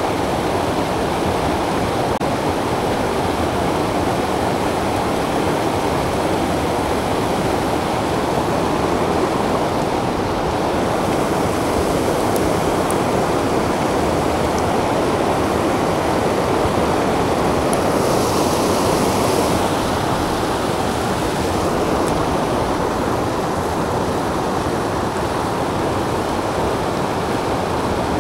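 Steady rush of a mountain creek pouring over a rocky drop, with a short, brighter hiss about two-thirds of the way through.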